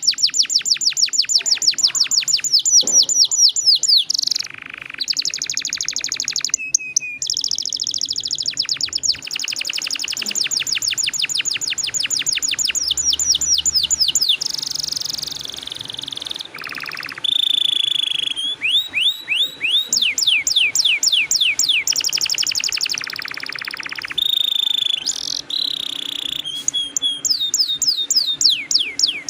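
Domestic canary singing a long rolled song: runs of rapid, evenly repeated falling notes, each run changing to a new trill every few seconds with brief breaks between.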